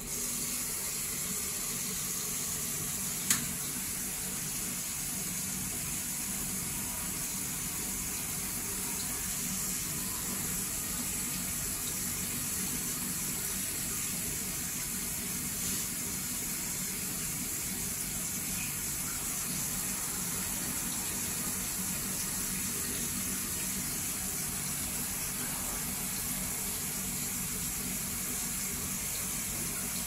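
Steady rush of water from a manual bidet attachment's nozzle spraying into the toilet bowl, the flow fed through a mini tankless electric water heater. A single sharp click about three seconds in.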